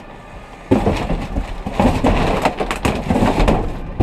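Trash being rummaged through in a dumpster: plastic bags rustling and crinkling and cardboard boxes shifting and knocking, starting about a second in.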